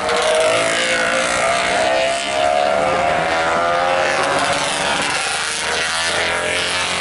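Vintage racing motorcycles passing close through a bend, their engines running with a pitch that rises and falls as they slow for the corner and pull away again.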